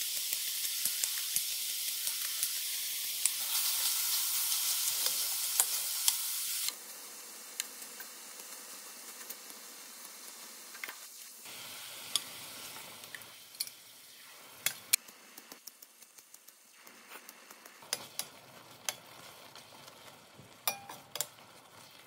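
Diced pork sizzling as it fries in a stainless steel pan. The sizzle is loud for the first six or seven seconds, then drops to a quieter hiss, with scattered clicks of metal tongs against the pan.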